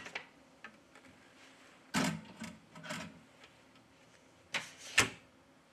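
Clicks and knocks from the door of a Mobile Dryer RG-202 phone-repair heating cabinet being handled as a phone is put inside. There is a duller knock about two seconds in, and two sharp latch clicks near the end, the last one the loudest.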